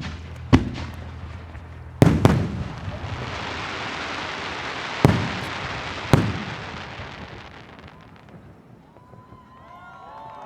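Fireworks finale: about five loud shell bursts in the first six seconds, with a dense crackling hiss from about three seconds in that dies away by about eight seconds. Near the end, crowd voices and whistles begin to rise.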